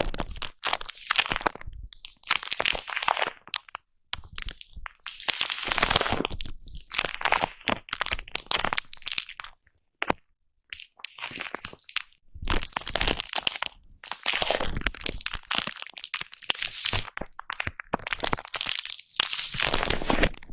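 A foam microphone cover being brushed and rubbed directly against the microphone, giving close, scratchy crackling strokes. The strokes last one to two seconds each, with short pauses between them.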